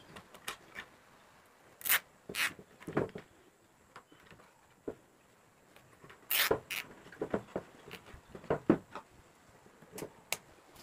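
Nylon cable tie being looped around a power cable and pulled tight as a strain relief, with scattered short rasps and clicks from the tie and from handling the cable in a wooden box.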